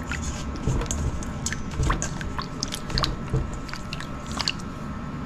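Milkfish pieces being mixed by hand in a wet marinade in a bowl: irregular wet squishing with small clicks and crackles.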